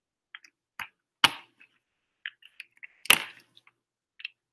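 Plastic snap-cap lids of microcentrifuge tubes clicking shut one after another: two sharp snaps, about a second in and about three seconds in, with lighter ticks between.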